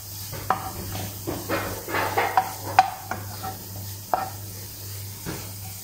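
A wooden spoon scraping and knocking against a nonstick frying pan in irregular strokes as chopped onions are stirred, over a light sizzle of the onions frying in a little oil.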